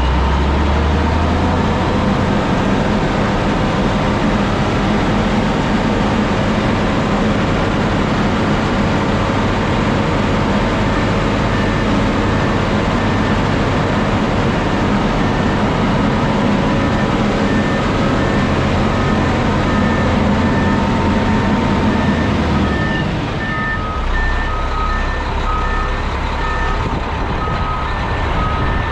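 Heavy diesel engine of a concrete mixer truck running steadily, easing off about 23 seconds in. From about the middle on, a backup alarm beeps in a steady repeating pattern.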